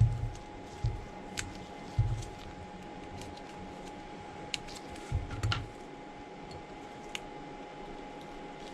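Scattered light clicks and a few dull knocks as an iPhone 13 Pro Max's replacement screen is handled and lined up on the phone frame, over a faint steady hum.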